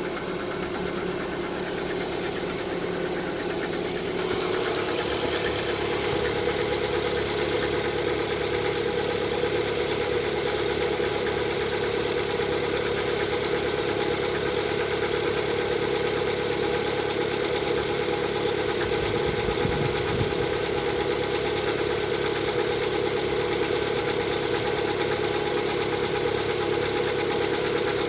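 Lada Vesta engine idling cold, with a knocking that the owner takes for the pistons knocking while the engine is cold. It runs a little louder from about four seconds in.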